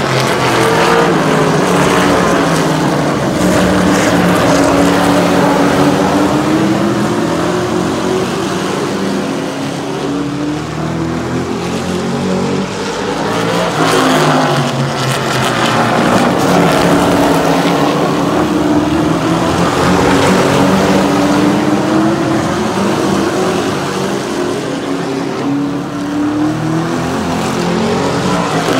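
Pack of super truck racing engines running at speed around a paved oval, several engines sounding together. Their pitch rises and falls in long sweeps as they circle, with a loud surge about halfway through as they pass close.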